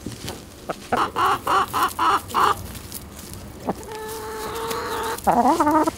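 Domestic chickens clucking: a quick run of about six clucks a second in, then a long drawn-out call that breaks into a louder, wavering cry near the end.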